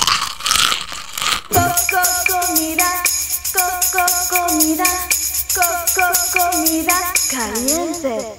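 Upbeat background music: a melody over a steady jingling percussion beat. It starts about a second and a half in, after a short noisy burst. Near the end the melody slides down and back up.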